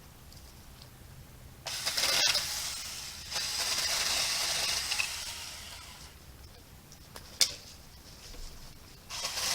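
Battery-powered Saker mini electric chainsaw run in two short spurts, one about a second long and a longer one of a couple of seconds, cutting through tree limbs. A sharp click comes in the first spurt and another on its own later.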